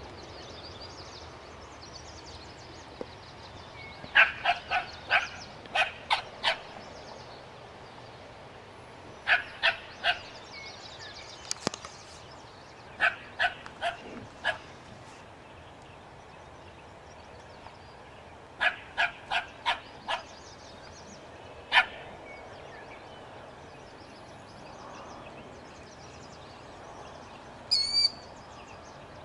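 Small dog barking: quick runs of sharp yaps, each run several seconds apart, ending with a single bark. A bird chirps briefly near the end.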